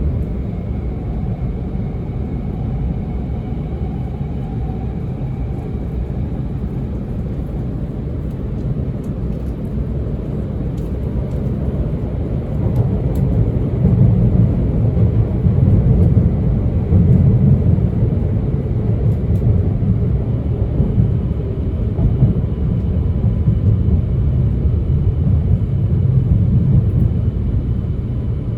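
Running sound inside the car of a JR East E2 series Shinkansen: a steady rumble of wheels and bogies on the track, growing louder about halfway through as the train picks up, with faint high tones over it.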